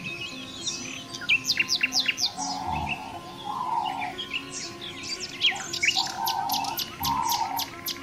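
Songbirds chirping in a rapid series of sharp, high notes that sweep downward, over soft background music.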